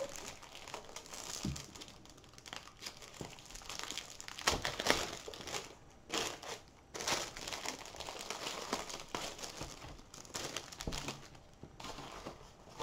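Clear plastic wrapping crinkling in irregular bursts as a rolled diamond painting canvas is handled and unwrapped.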